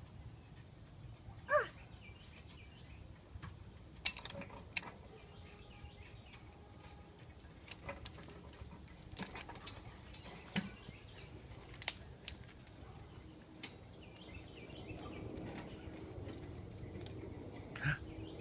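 Quiet outdoor ambience with scattered faint clicks and knocks from a metal backyard play set and its chain-hung trapeze rings as a child climbs and swings. Two short squeaks fall in pitch, the loudest about a second and a half in and another near the end.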